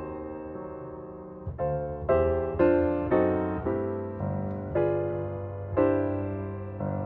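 Slow solo piano music: chords struck about once a second, each left to ring and fade.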